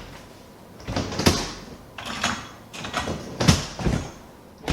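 A dishwasher rack sliding and meat claws being set into it: a run of short sliding and clattering sounds, the loudest about a second in and again about three and a half seconds in.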